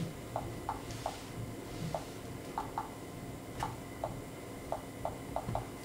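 Key-click sounds from a Samsung Windows 8 tablet's on-screen touch keyboard, one short identical click per key tap as a name is typed. About a dozen come at an uneven typing pace, some in quick pairs near the end.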